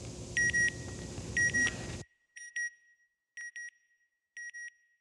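Electronic double beeps, one pair about every second, over a steady rumbling hiss that cuts off about two seconds in; the beeps then carry on more quietly. It is the sound effect of the NASA Goddard Space Flight Center end logo.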